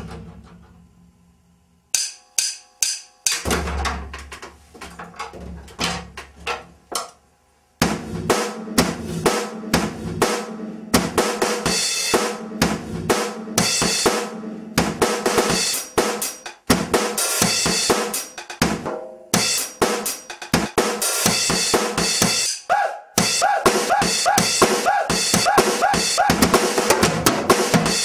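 Drum kit: one hit rings out and fades, a few separate strikes come about two seconds in, and from about eight seconds a fast, dense beat of snare, bass drum, toms and cymbals runs on. The playing is pieced together in editing from single recorded hits, so it sounds choppy.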